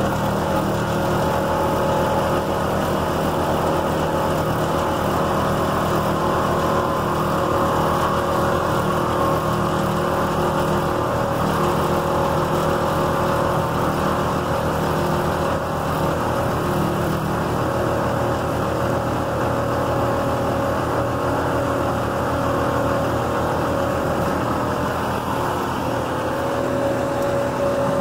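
A 2005 Packer 750 horizontal grinder running, a steady heavy machine drone with a few held tones that does not change.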